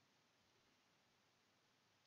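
Near silence: faint steady recording hiss.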